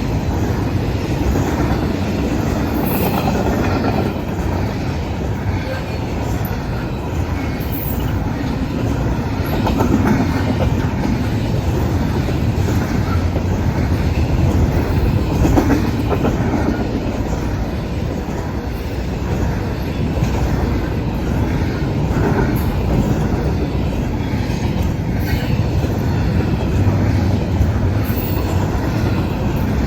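Norfolk Southern intermodal freight train rolling past at a steady loud rumble, its wheels clacking over the rail joints.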